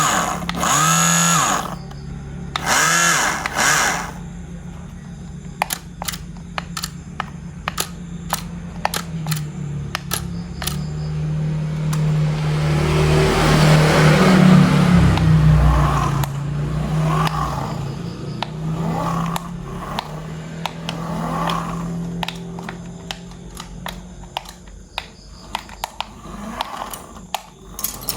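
A small electric motor running steadily indoors, with many sharp plastic clicks and clatter. A whine rises and falls a few times in the first few seconds, and the motor grows louder and noisier for a few seconds midway.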